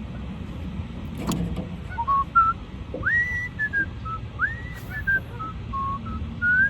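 A person whistling a tune: a string of clear notes, several of them sliding sharply upward, starting about two seconds in.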